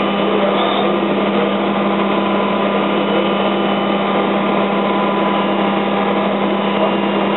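GROB G350 five-axis CNC machining centre milling: a steady machine noise with a constant low hum and a few faint higher tones.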